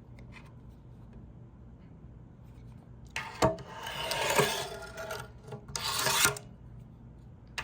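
Milwaukee 25-foot wide-blade tape measure's steel blade sliding against its case, a rasping rub about three seconds in and a shorter, brighter one about six seconds in.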